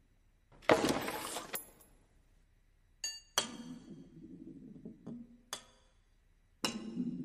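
Metal car parts knocking and clinking against each other in a chain-reaction machine: a scraping rush about a second in, a short ringing clink around three seconds followed by a knock, then more clicks and a clattering burst near the end.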